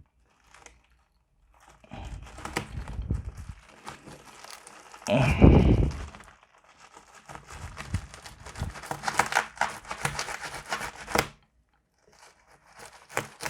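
Parcel packaging being torn open and crumpled by hand, irregular crinkling and tearing of plastic wrapping, with a louder bump of handling about five seconds in.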